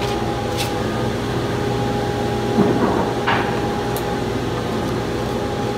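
Woodworking shop machinery running: a steady electric-motor hum, with a few light knocks.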